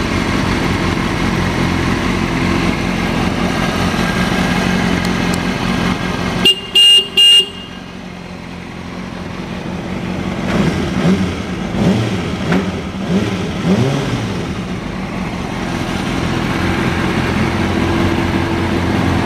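Kawasaki ZX6R's inline-four engine idling steadily. About six and a half seconds in, the horn beeps three times in quick succession. A few seconds later the throttle is blipped about five times, each a short rise in revs, before the engine settles back to idle.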